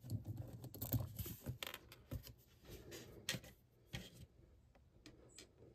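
Fingers handling a plastic S.H.Figuarts action figure and its sword: faint, irregular small plastic clicks and rubbing, with a few sharper single clicks in the second half.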